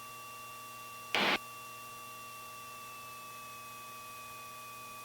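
Aircraft headset intercom feed: a steady electrical hiss with thin whining tones, broken about a second in by one short burst of static lasting about a quarter second.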